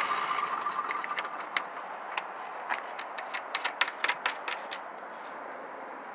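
Engine-driven welder/generator running down and stopping, its steady whine fading out about a second in. It is followed by about a dozen sharp, irregular clicks over the next few seconds.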